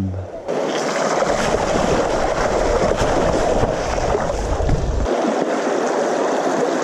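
A shallow rocky stream running, heard close as a steady rushing hiss. A low wind rumble on the microphone drops away about five seconds in.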